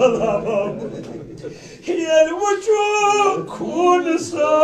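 A single voice singing a Kashmiri noha, a mourning elegy, in long held, wavering notes with a short break about a second and a half in.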